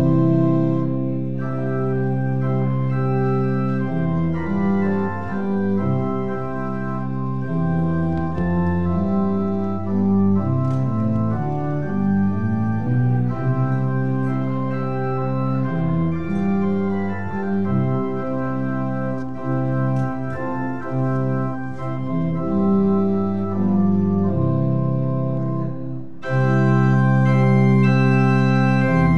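Church organ playing the postlude: slow sustained chords moving from one to the next, swelling to a louder, fuller chord near the end.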